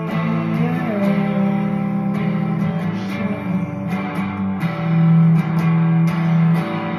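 Guitar-led rock music with sustained strummed chords and no singing.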